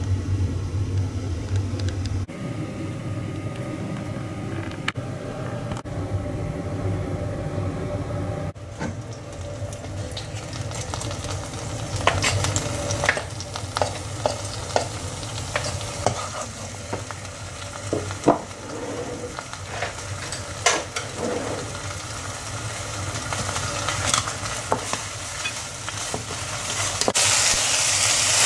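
Food frying in oil in a wok, sizzling steadily, with sharp knocks and clinks of utensils against the pan through the middle. A louder, hissier sizzle starts near the end as courgette noodles go into the pan. A low hum fills the first couple of seconds.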